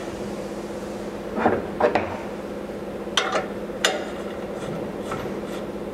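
Metal parts and a hand tool clinking and tapping as a hood spring is fitted to the steel hood-shaft bracket of a wheel balancer: about four short sharp knocks spread over a few seconds, over a steady low hum.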